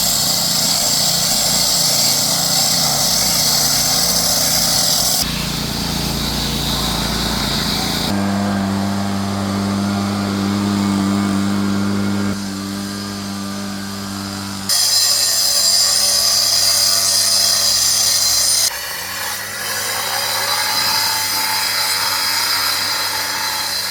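Engine-driven concrete construction machinery running steadily in a series of short clips that change abruptly, one with a hum and another rising in pitch as an engine speeds up.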